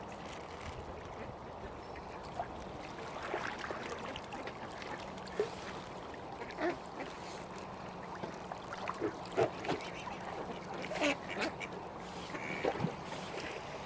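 Mallard ducks quacking in short, scattered calls, over a steady low hum.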